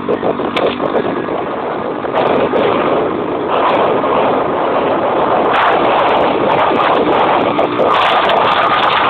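Steady, loud rush of wind and road noise from a moving vehicle driving along a paved road.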